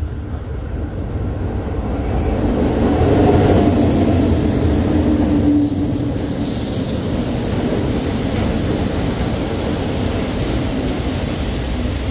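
Thai passenger train pulling into the station and braking. The rumble of the train builds and is loudest a few seconds in, with a steady low engine tone and a thin high brake squeal. The level drops suddenly about six seconds in, and the coaches then roll past slowly with a steady rumble.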